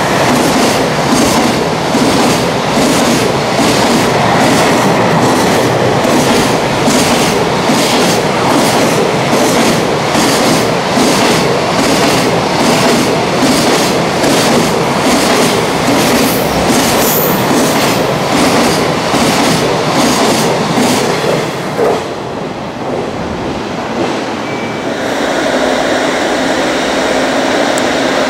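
A long container freight train passing close at speed, its wagon wheels clattering in an evenly repeating rhythm. The clatter stops about 22 seconds in, giving way to a quieter, steadier sound.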